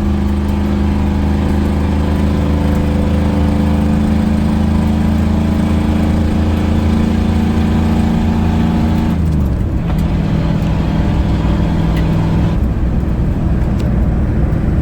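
Ford 6.9 IDI V8 diesel pulling steadily under throttle, then, about nine seconds in, the throttle is released and the engine note drops as the truck coasts. It carries on running smoothly on deceleration without bucking, which suggests a freed-up metering rod in the injection pump.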